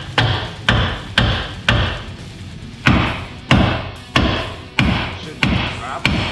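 About ten hammer blows on the truck's front suspension parts, roughly two a second, with a short pause about two seconds in.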